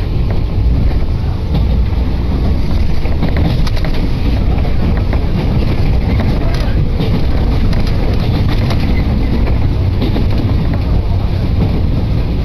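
Running noise heard inside a JR West Sanyo Line local electric train carriage: a steady low rumble with a few faint clicks.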